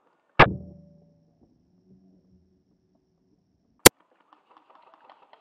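A single loud airsoft sniper rifle shot, a sharp crack with a short low ringing tail that dies away within about half a second. A very short sharp click comes about three and a half seconds later.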